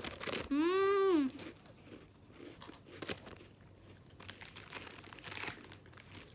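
Packet wrapper crinkling and cream biscuits crunching as they are bitten and chewed, with many short crackles. About half a second in comes a brief drawn-out vocal exclamation that rises and then falls in pitch, the loudest sound here.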